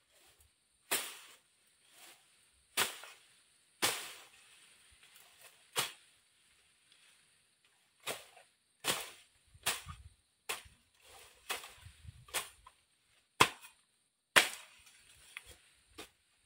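A bolo machete chopping through undergrowth: sharp cuts coming irregularly, about once a second, with a short pause a little after the middle.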